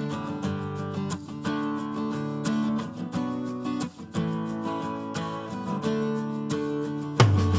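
Background music of chords changing at a steady pace, with a heavier bass and beat coming in near the end.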